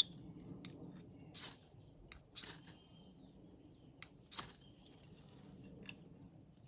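A sharp click, then several brief rustles and crackles of a bag being handled as wild garlic is taken out of it.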